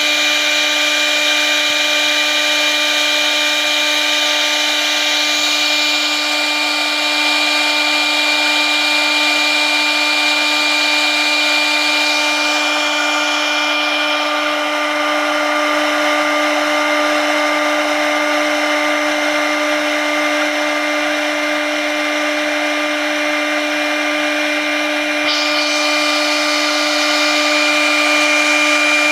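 CNC router spindle running at a steady high whine while its bit cuts through 22 mm compact board, with a hiss of cutting over it. About twelve seconds in the higher hiss of the cut lessens, and it rises again about twenty-five seconds in.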